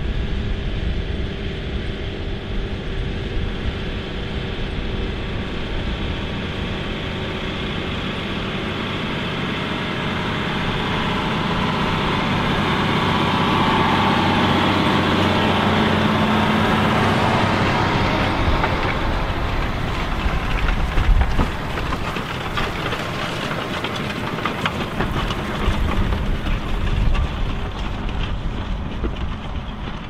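John Deere 6215R tractor's six-cylinder diesel engine working steadily under heavy load while pulling a mounted reversible plough through the soil. The engine grows louder as the tractor comes close about halfway through, then sounds rougher and noisier as it works on.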